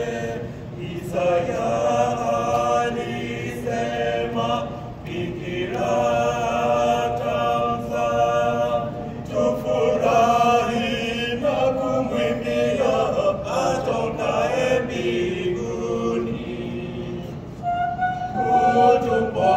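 Mixed choir of men's and women's voices singing a Swahili hymn, holding chords in phrases with short breaks between them.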